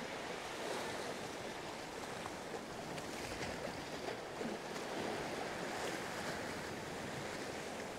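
Sea waves washing against shoreline rocks, an even rushing noise with no single loud event.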